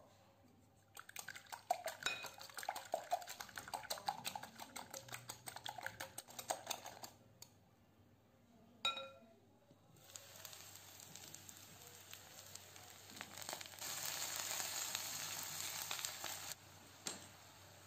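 A wire whisk beating eggs in a glass bowl, a fast run of clinks, then one ringing tap of the whisk on the bowl. Then zucchini slices frying in a pan: a steady sizzle that grows louder near the end as liquid is poured in.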